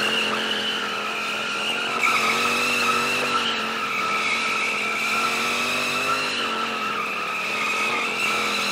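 Yamaha FZ-07 parallel-twin engine held high in the revs, its pitch swelling up and down as the throttle is worked, with tyres squealing steadily on the pavement as the bike is ridden in tight circles.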